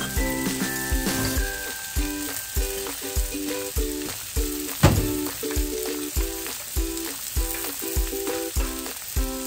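Food sizzling as it fries in a skillet and on a griddle, under background music with a steady beat. One sharp click about halfway through.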